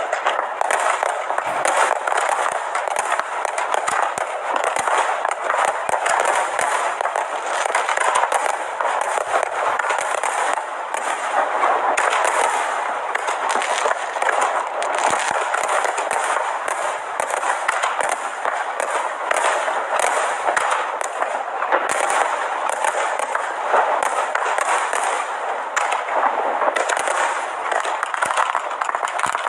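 Fireworks display: a dense, continuous rattle of rapid bangs and crackles, with no break.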